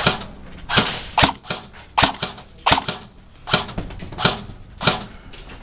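Airsoft guns firing single shots: about seven sharp cracks at an irregular pace, roughly one every half second to second.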